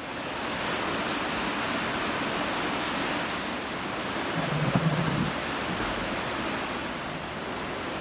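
Steady rushing of a mountain river, an even wash of water noise throughout, with a brief low bump about halfway through.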